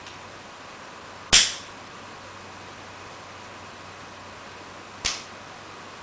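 Two sharp, hissy cracks, each dying away quickly: a loud one about a second in and a softer one about four seconds later.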